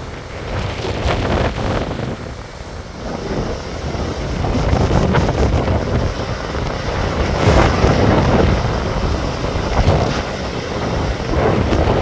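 Big ocean surf breaking and churning into whitewater, with wind buffeting the microphone. The rush of the surf grows louder a few seconds in and swells in repeated surges.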